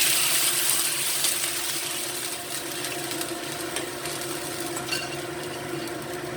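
Pork ribs and shiitake sizzling in a hot pan as the ribs go in to braise. The hiss is loudest at first and dies down over the first couple of seconds, with a few light utensil clicks after it.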